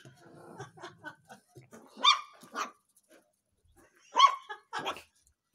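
Puppies yapping as they attack a cat: soft scuffling and low sounds at first, then two short sharp barks about two seconds in and two more about four seconds in.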